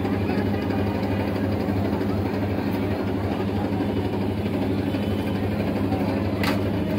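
Steady, even hum from the motor driving a roller ice-cream cart's spinning chilled drum, running at constant speed. A short click comes about six and a half seconds in.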